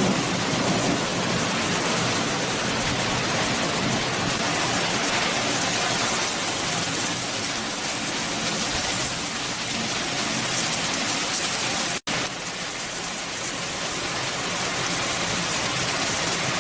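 Steady, dense rush of falling water, with a momentary dropout about twelve seconds in.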